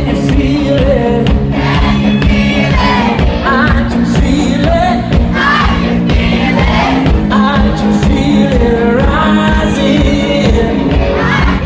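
A live rock band playing loudly, with a lead singer's voice over bass and drums.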